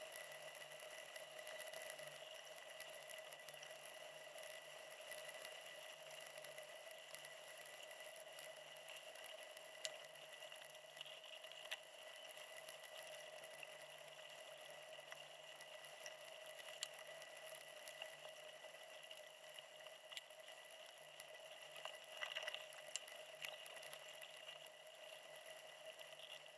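Near silence: a faint steady hiss and hum, with a few faint ticks.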